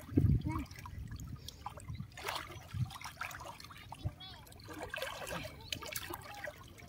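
Water trickling and splashing in small irregular bursts.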